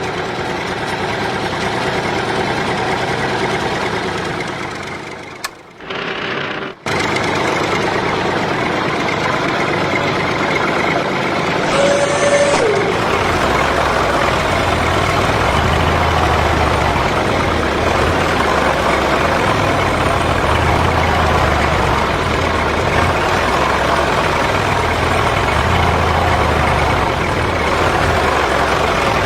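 Tractor engine running steadily, with a short break about six seconds in and a brief falling whistle around twelve seconds. From about thirteen seconds on, a low throbbing engine note joins in.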